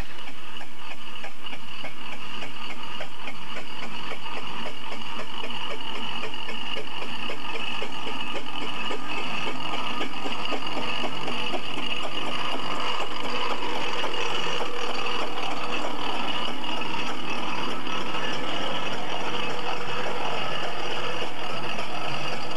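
Steam traction engine running as it travels, towing a threshing drum, with a steady fast rhythmic beat and a steady high tone over it.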